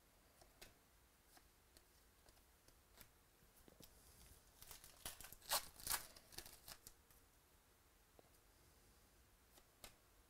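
Trading-card pack wrapper being torn open and crinkled, in a few seconds of tearing from about halfway in, with faint light clicks of card handling before and after.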